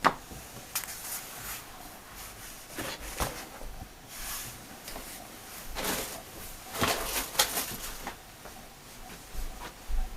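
Handling noise from unboxing binoculars: irregular rustles and light clicks and knocks as the binoculars and their packaging are handled, with a cluster of rustling about seven seconds in.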